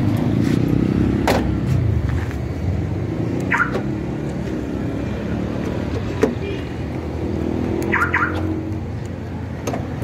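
A Kia Spectra's engine idling with a steady low hum, with a few sharp clicks and short high chirps around the driver's door handle and key.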